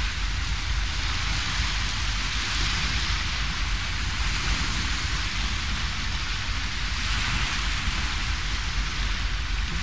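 Steady rushing noise with a low rumble underneath, picked up by a camcorder microphone outdoors, with no distinct events.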